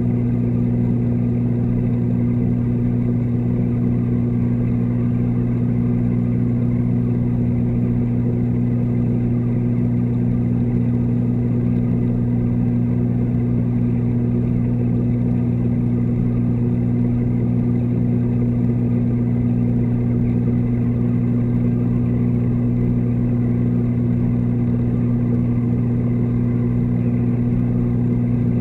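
Low, steady electric hum of the reef tank's pump motors, carried through the water and picked up by the camera in its underwater housing.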